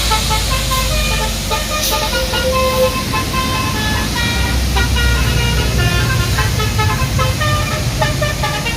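A bus's Basuri telolet horn playing a quick melody of short notes that change pitch, over the low rumble of the bus engine.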